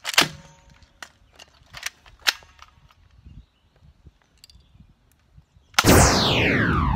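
Sharp clicks and snaps of a cheap single-shot, cock-action spring airsoft Uzi being cocked and fired: the loudest just after the start, two more around two seconds in. Near the end a loud sound sweeps steadily down in pitch and runs on.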